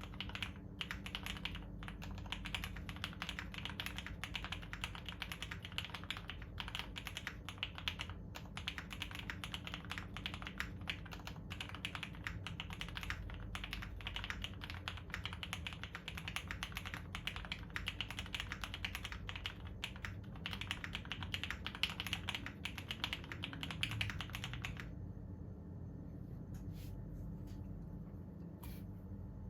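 Continuous fast typing on a Tofu60 mechanical keyboard with lubed Cherry MX Black Hyperglide linear switches, a polycarbonate plate and GMK keycaps: a dense clatter of keystrokes. The typing stops about 25 seconds in, leaving only a few scattered key clicks.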